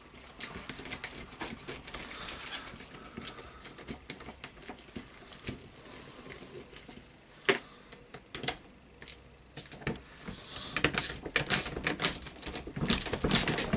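Hand ratchet clicking in short runs while undoing the barrel casing screws of a Hitachi H45MRY demolition hammer, with light metal clinks. The clicking comes thickest near the end.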